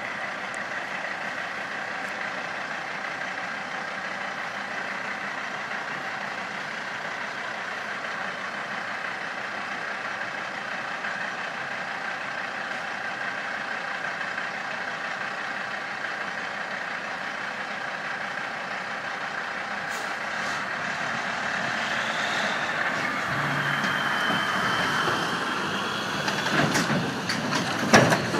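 Heavy diesel truck idling steadily, then pulling away and growing louder as it drives past close by. Several sharp knocks come just before the end.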